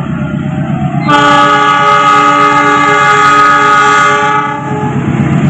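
KAI CC206 diesel-electric locomotive sounding its horn as it approaches: one loud chord of several tones, starting about a second in and held for about three seconds, then fading. The diesel engine's steady low throb runs beneath it.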